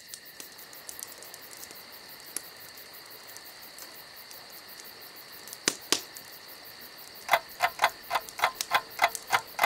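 Song intro: a steady, high, cricket-like chirring with scattered light clicks. About seven seconds in, a regular ticking of short plucked notes starts, about three and a half a second.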